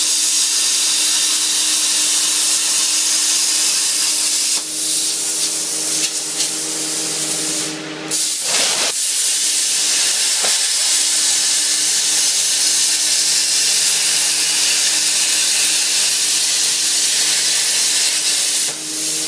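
Hypertherm Powermax 1000 plasma torch cutting half-inch steel plate on a CNC table: a loud, steady hiss of the plasma arc and air jet with a steady hum beneath it. The sound dips briefly about eight seconds in, then carries on.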